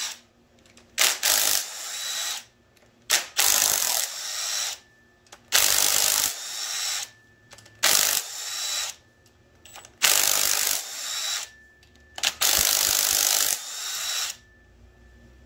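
Cordless impact driver spinning out rocker arm bolts on an LS V8 cylinder head one after another: six bursts of whirring and rattling, each a second or two long with a sharp snap at the start as a bolt breaks loose, about two seconds apart.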